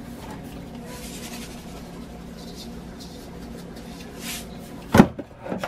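Salt shaken onto raw steaks in a few soft hissing bursts, over a steady low hum, then a single sharp knock near the end.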